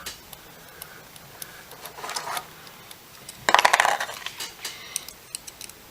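Small metal motor screws being handled, with light metallic ticks and clicks. About three and a half seconds in comes a quick burst of rattling clinks, the loudest sound.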